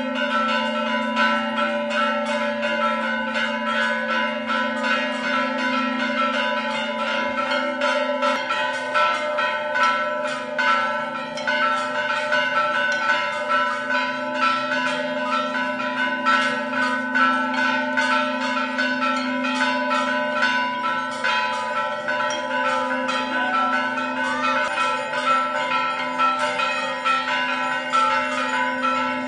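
Hanging brass temple bells struck over and over, rapidly and without pause, during aarti worship. The overlapping strikes blend into one continuous ringing.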